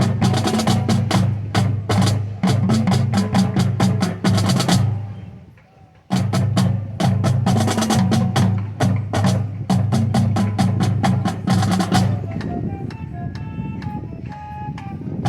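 Marching drumline playing a fast, loud passage of drum strokes with deep pitched bass drums. It breaks off about five seconds in and restarts a second later. Near the end it drops to a quieter passage of ringing pitched notes before the drums come back in.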